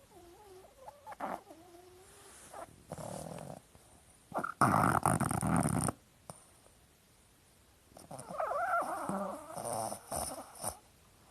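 Sleeping dog snoring in irregular, rasping bursts, some with a wavering squeaky tone; the loudest snore comes about five seconds in, and another long drawn-out one runs through the last few seconds.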